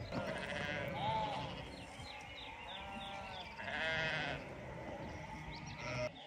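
A flock of sheep bleating, many calls overlapping, some low and some much higher.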